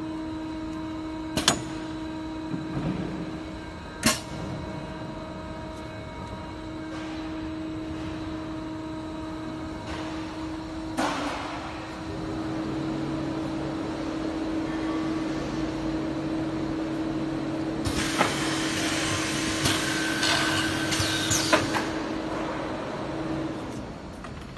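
A woodworking multi-head boring machine running with a steady hum and a couple of sharp clicks. About halfway through a second, lower hum joins in, and near the end there are a few seconds of loud rushing noise mixed with clicks as the machine works.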